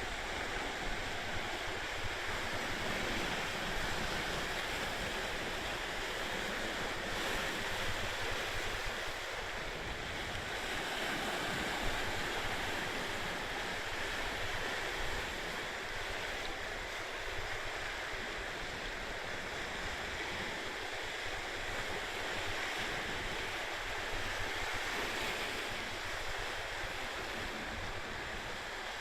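Sea waves washing, a steady rushing noise, with wind buffeting the microphone as a fluctuating low rumble.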